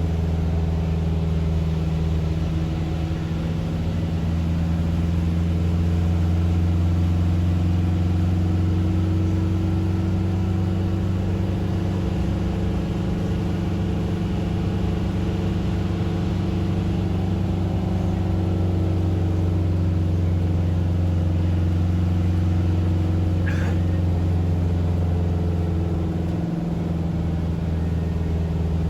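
Steady low drone of a vehicle's engine and road noise heard from inside the cabin while driving, its pitch drifting slowly with speed.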